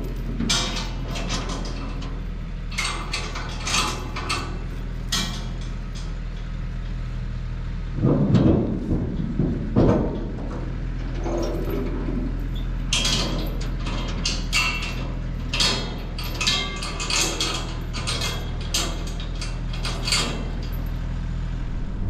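Pickup truck engine idling in a steady low hum, with scattered metallic clanks and knocks from gear being handled at the trailer, the loudest cluster about eight to ten seconds in.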